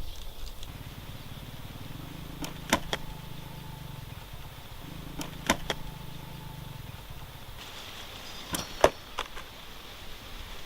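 A low motor hum comes and goes twice, with a few sharp clicks over it, two of them close together near the end.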